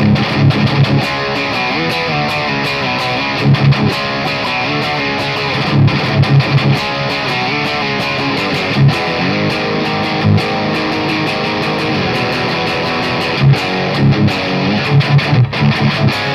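Schecter C-6 Pro electric guitar played with its bridge pickup coil-tapped to single-coil mode, riffing with repeated heavy low notes between quicker higher runs.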